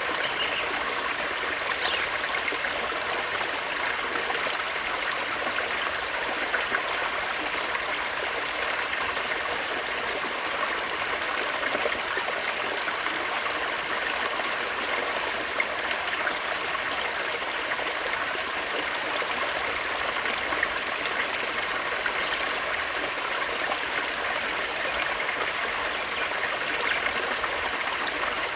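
Forest stream flowing and trickling over stones, a steady, even rush of water.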